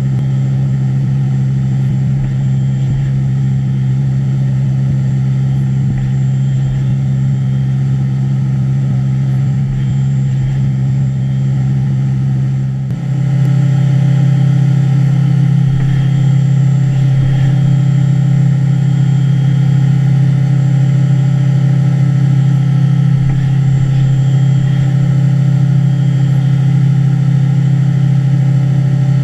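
Haas five-axis CNC mill running a cut, its spindle giving a loud, steady pitched hum. About 13 seconds in the sound dips briefly, then carries on at a slightly different pitch.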